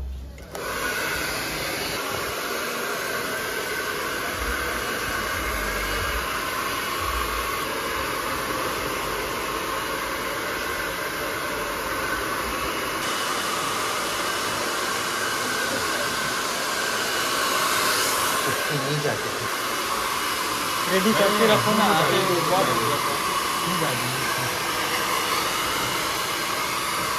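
Handheld electric hair dryer blowing steadily as hair is dried after a haircut. A brief, louder pitched sound rises over it about three-quarters of the way through.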